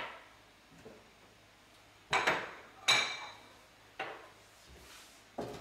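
Small dishes and containers being handled and set down on a kitchen countertop: a string of about six separate clinks and knocks, the two loudest, a little past two seconds and near three seconds in, ringing briefly.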